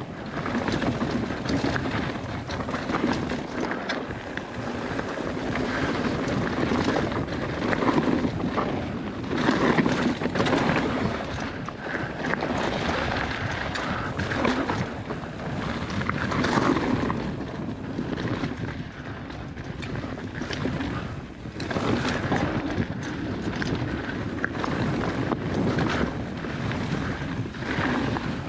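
Mountain bike rolling fast over loose dirt and gravel, heard from a handlebar-mounted camera. Tyre noise and wind rushing over the microphone run throughout, with frequent short clatters from stones and the bike rattling, swelling and easing every second or two as the trail rolls up and down.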